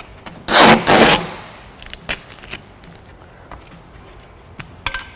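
Masking tape ripped off the roll in two quick loud pulls about half a second in, then a few light clicks and taps as the strips are pressed onto the door glass, and a sharp click near the end.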